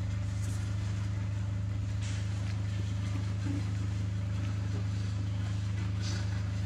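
A steady, low mechanical hum runs throughout, with a few faint, brief rustles over it.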